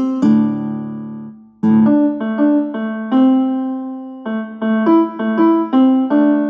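Instrumental ringtone melody in a piano-like keyboard tone: short runs of notes broken by longer held notes, with a brief pause about a second and a half in.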